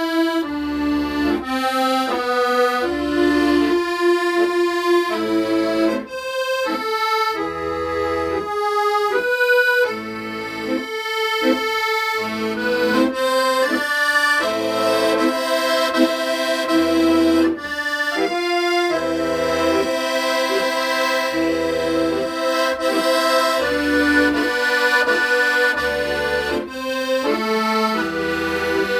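Accordion playing a melody of held notes, with bass notes sounding underneath in a regular pulse.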